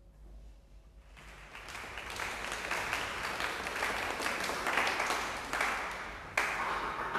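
Audience applauding, starting about a second in and swelling into dense, steady clapping.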